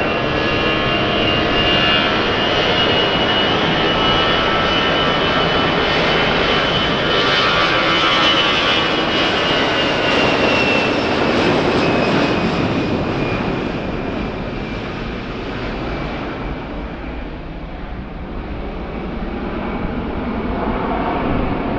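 Airbus A320-214 jet airliner at takeoff power with its CFM56-5B turbofans, through the takeoff roll and lift-off: a loud, steady jet roar with a high whine over it. The whine rises a little and then fades, and the roar drops away after about 15 seconds as the aircraft climbs out.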